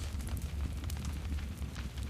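Campfire burning: scattered sharp crackles and pops of burning wood over a steady low rumble of the flames.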